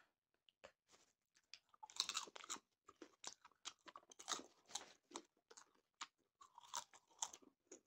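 Close-miked popcorn being crunched and chewed by two people eating together, a dense run of crisp, irregular crackles that grows thicker about two seconds in.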